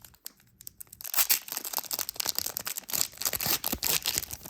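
Trading cards and their wrapper being handled: irregular crinkling and rustling of a foil pack and cards being shuffled, quiet for about the first second, then busy crackling.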